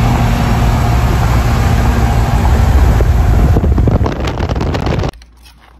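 Steady highway road and wind noise from a moving car, with a low engine and tyre drone. Wind buffets the microphone in the last second or so, and the sound cuts off abruptly about five seconds in.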